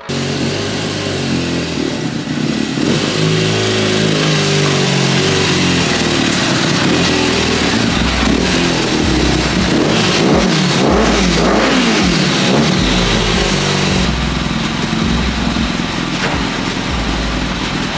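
Kawasaki ZZR 1200 motorcycle's water-cooled, carburetted inline-four engine running and being revved, its pitch rising and falling repeatedly.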